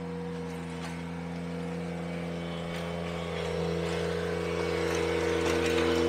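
Ventrac 4520Z compact tractor's engine running steadily as it pulls a power rake through a gravel driveway, growing louder as it comes closer.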